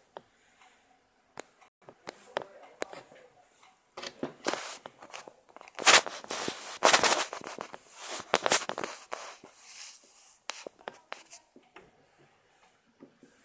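Irregular rustling and crunching noises with scattered sharp clicks, busiest and loudest in the middle stretch.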